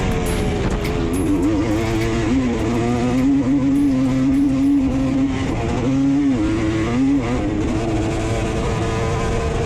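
Race ATV engine running hard under throttle, its pitch holding and then dipping and climbing again several times as the rider eases off and gets back on the gas.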